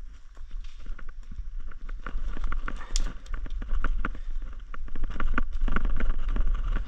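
Bypass loppers cutting through sapling stems and brush, with irregular cracks, snaps and rustling of twigs and dry leaves, and one especially sharp crack about three seconds in.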